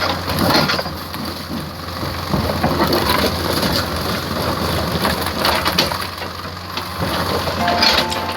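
Rain crackling and pattering on a vehicle in irregular sharp drops, over the steady low hum of an idling engine.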